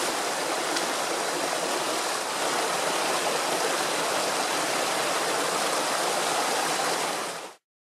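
Rocky mountain stream rushing over stones in a steady rush of water, which cuts off suddenly near the end.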